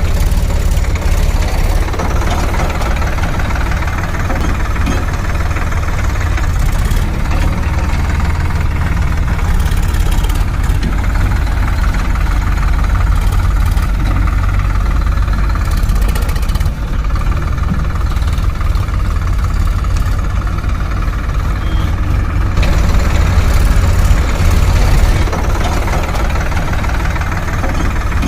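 Heavy diesel machinery engine running steadily with a knocking clatter, growing a little louder about three-quarters of the way through.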